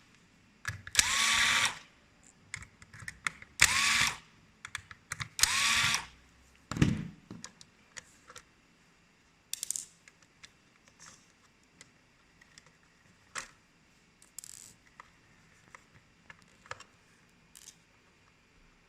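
Small electric motor whirring in three short bursts of about a second each, each one spinning up to a steady whine, followed by scattered clicks and knocks of parts and tools being handled.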